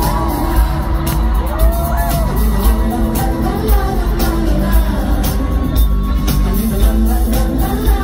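Live pop music played loud at a concert: a singer's voice over a heavy bass beat.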